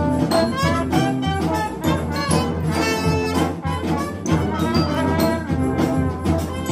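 A band of brass and wind instruments playing a tune together from written parts, a trumpet close up and loudest over trombone, saxophone and tuba, the notes changing quickly.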